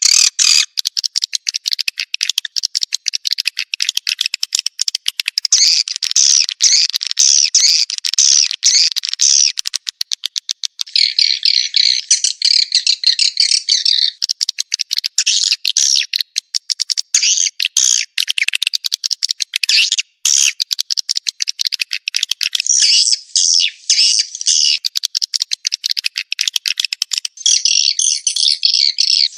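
Swiftlet lure call for a swiftlet house: dense, high-pitched chirping and twittering of swiftlets, broken by runs of rapid clicks.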